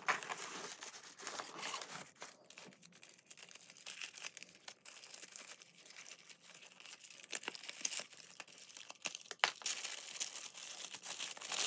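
Cardboard packaging and thin paper wrapping being handled and unwrapped: continuous rustling and crinkling with scattered sharper crackles.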